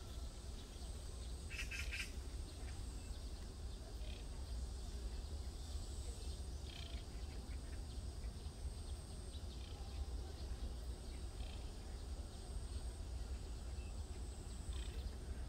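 Outdoor park ambience: a steady low rumble with a few short bird chirps, the clearest cluster about two seconds in.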